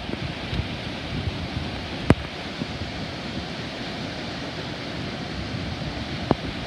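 Wind buffeting the microphone outdoors, a steady rushing noise with uneven low gusts, broken by a sharp click about two seconds in and a fainter one near the end.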